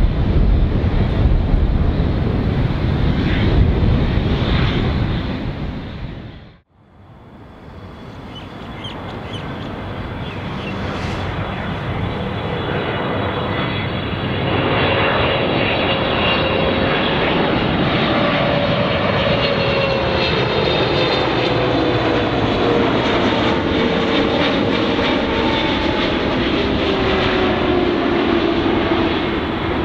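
Loud jet engine noise from a departing Airbus A350-900 fades out about a fifth of the way in. After a moment of near silence, a Boeing 777-300ER's GE90 turbofans build up as the airliner approaches on arrival. From about halfway the engine noise carries a high fan whine and a lower tone, both sliding slowly down in pitch as it passes.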